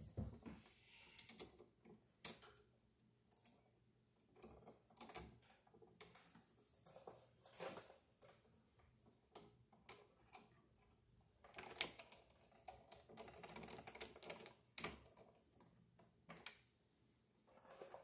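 Faint, irregular small clicks and scrapes of a wall switch being handled: a copper wire bent onto its terminal and a screwdriver working the terminal screw. Two sharper clicks stand out, about 12 and 15 seconds in.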